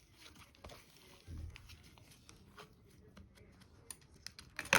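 Slime being worked and mixed by hand: a run of small sticky clicks and pops, with a soft low thump a little over a second in and a louder crackling pop near the end.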